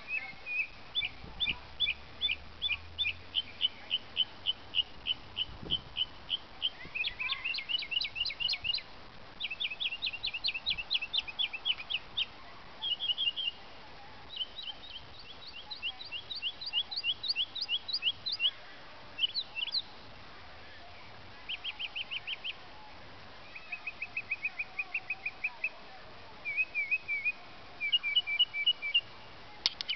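Northern mockingbird singing: a long run of varied chirping phrases, each note repeated several times in quick succession before it switches to a new one, with short pauses between phrases.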